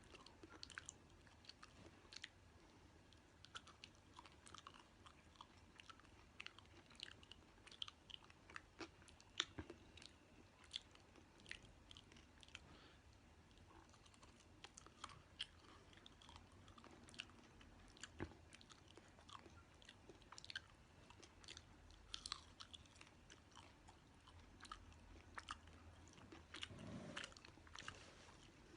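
Faint chewing of a dry-roasted locust: crisp crackles and crunches at an uneven pace.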